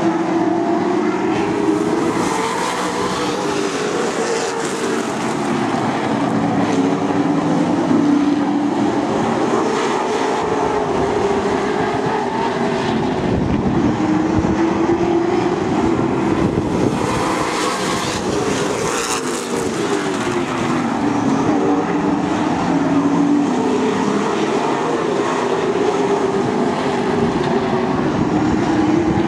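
A pack of late model stock cars' V8 engines racing around a short oval track. The engine note rises and falls in waves as the cars accelerate and lift through the turns.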